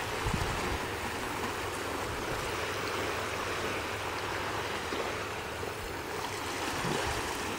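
Small waves washing on a beach shore, a steady wash of water noise.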